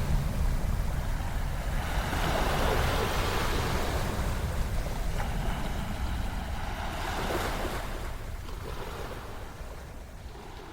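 Ocean surf: waves washing in and swelling every few seconds, fading out near the end.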